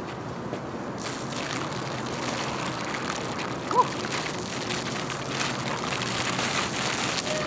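Tall bike's tyres rolling over a wet, icy roof surface: a steady hiss with faint crackles that grows slightly louder, and one short squeak about four seconds in.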